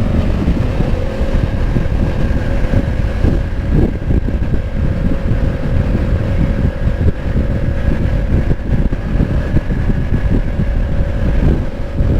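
Honda CB500X's parallel-twin engine running through an aftermarket exhaust while the bike is ridden, its note holding steady at an even engine speed.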